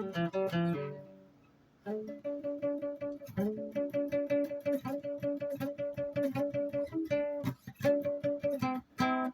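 Guitar being played: a run of plucked notes dies away about a second in, then quick, even picking of a few repeated notes starts shortly after.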